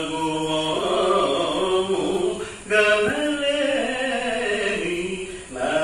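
A man singing solo into a microphone, a chant-like melody in long held notes, with short breaths about two and a half seconds in and just before the end.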